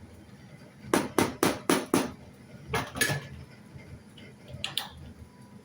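Kitchenware clattering: a quick run of about five metal knocks, then two more, then a couple of lighter clicks near the end, as a cooking pot and its lid are handled.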